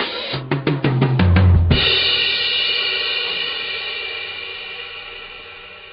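Drum kit: a fast fill of drum hits, stepping down in pitch, ending about two seconds in on a cymbal crash that rings out and slowly fades.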